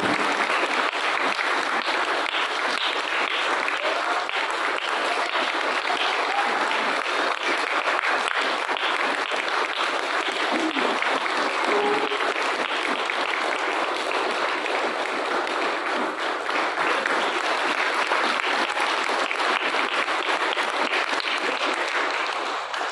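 An audience clapping steadily, dense and unbroken, dying down at the end.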